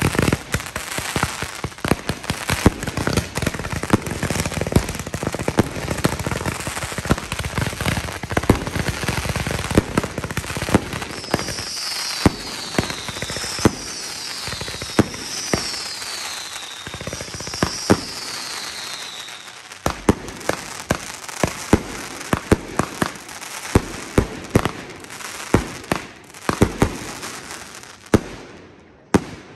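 A multi-shot firework cake firing from the ground. It starts as a dense, rapid barrage of launches and crackling bursts. Four falling whistles come partway through, then separate sharp bangs several a second until it stops near the end.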